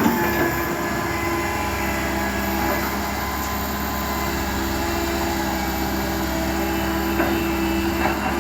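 Heavy diesel engine of construction machinery running steadily at constant speed, a low hum with a higher steady whine over it. A couple of faint knocks near the end.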